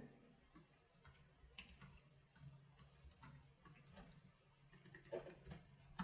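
Faint, irregular typing on the Freewrite Traveler's low-travel keyboard, keys clicking one after another, with a slightly louder run of keystrokes near the end.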